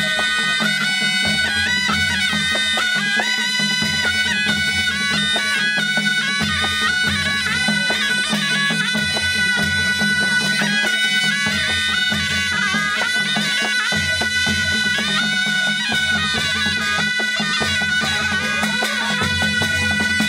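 Nepali panche baja wedding band playing a folk dance tune: sanai shawm and brass trumpets carry a reedy, sustained melody over a steady low drone, with drums beating a repeating deep pattern.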